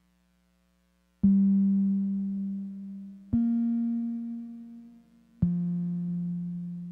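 Background music: three low keyboard notes, each struck and left to fade slowly, about two seconds apart, after a second of near silence.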